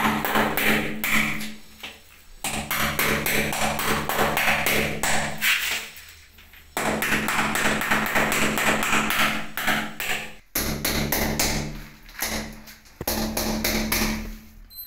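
Hammer tapping at ceramic wall tiles in quick, evenly spaced strikes, in several runs that start and stop abruptly.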